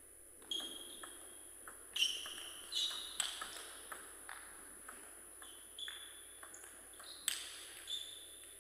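Table tennis rally: the ball clicks sharply off the bats and the table in about a dozen quick, irregular hits, each with a short ringing ping.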